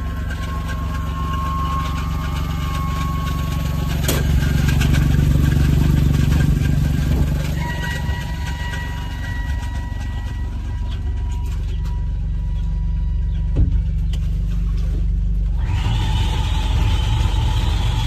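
John Deere Gator XUV 835M utility vehicle's engine idling steadily, with a sharp click about four seconds in. A steady hiss joins in near the end.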